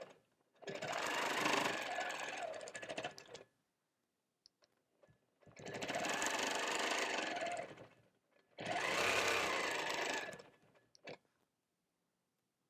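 Longarm quilting machine stitching in three runs of a few seconds each, with short pauses between them, then it stops.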